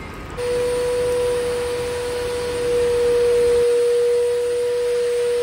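Vacuum cleaner running: a steady motor whine over the rush of air. The deep rumble drops away about two-thirds of the way in.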